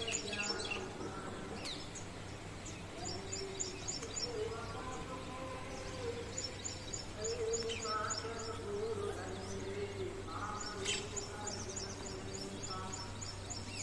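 Small birds chirping in quick runs of short high chirps, over a steady low outdoor hum and a faint wavering tone lower down.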